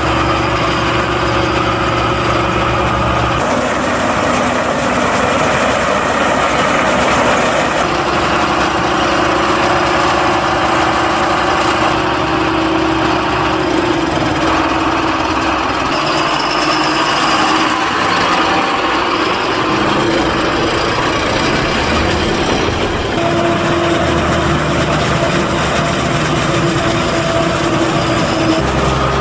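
Large farm diesel engines running, tractors pulling forage wagons and a forage harvester at work in a maize harvest. The engine note and mix change abruptly every few seconds as shots change.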